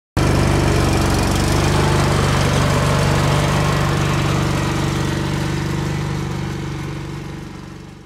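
John Deere L130 lawn tractor engine running steadily as the tractor drives away, growing gradually fainter over the second half.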